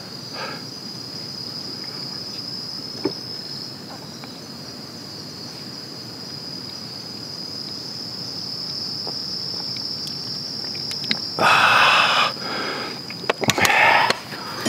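Insects chirring in one steady high-pitched note, with no break. Near the end a loud breathy exhale after a long swig of ale, followed by a short spoken exclamation.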